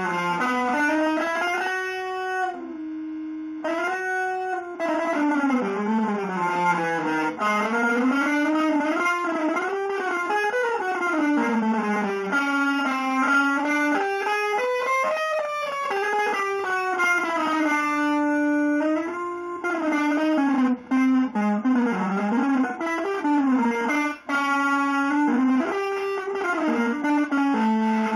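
Electric guitar, run through effects, playing a single unaccompanied improvised melodic line. The notes glide smoothly up and down in bends and slides, with one note held steadily a few seconds in.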